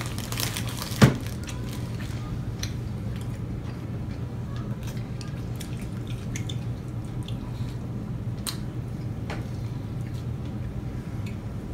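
Two people chewing big mouthfuls of burger: wet chewing and lip-smacking with scattered small clicks, and one sharper knock about a second in. A steady low hum runs underneath.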